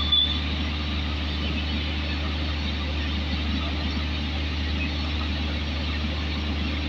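Steady rushing of water discharging from a fire-protection riser's open landing valves during a flow test at about 80 psi, over a constant low rumble.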